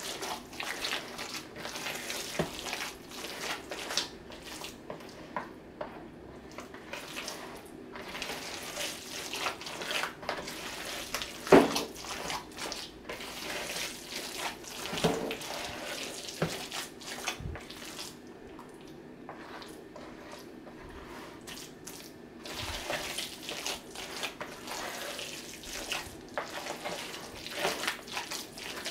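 A hand squishing and kneading chicken salad (shredded rotisserie chicken in a creamy dressing) in a plastic bowl: irregular wet squelching and slapping, with a few sharper knocks against the bowl and a quieter stretch about two-thirds of the way through.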